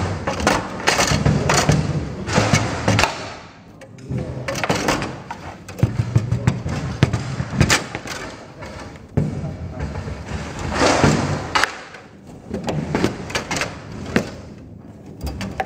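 Foosball table in hard play: irregular sharp knocks of the ball struck by the figures and hitting the table walls, with the rods clattering and short lulls between rallies.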